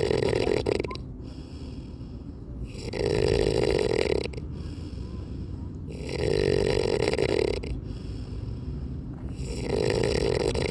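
Snoring: one long snore about every three and a half seconds, each lasting about a second and a half, with quieter breathing between.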